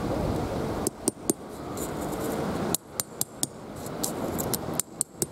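Peg hammer striking a plastic tent peg into soft, sandy ground: sharp knocks in three quick runs of about three blows each. The sand is soft, so the peg is hard to drive.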